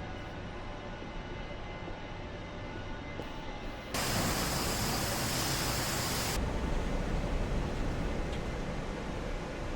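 Steady factory-floor machinery noise, with a louder hiss that starts abruptly about four seconds in and cuts off two or three seconds later.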